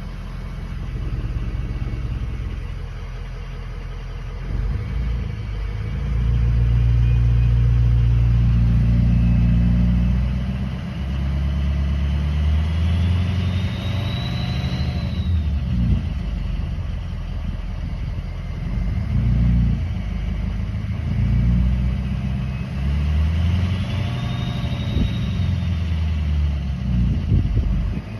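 2003 6.0-litre engine revved up and let back down several times, with a high whine that climbs and falls with the revs. The owner's complaint is a grinding sound.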